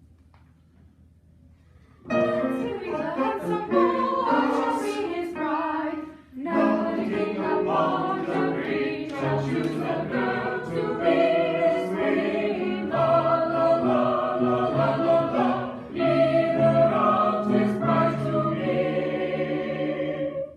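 Mixed choir of sopranos, altos, tenors and basses singing in parts. It comes in about two seconds in, breaks off briefly near six seconds, and sings on until a cutoff at the end.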